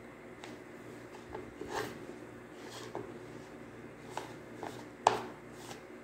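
Close-up eating sounds of a man eating by hand: chewing and mouth clicks, with fingers picking food from a bowl. Scattered soft sounds, with a sharp click about five seconds in the loudest.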